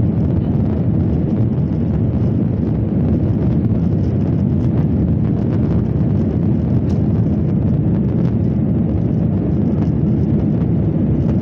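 Jet airliner cabin noise during the climb just after takeoff: the engines and the air rushing past the fuselage make a loud, steady low drone, heard from a window seat inside the cabin.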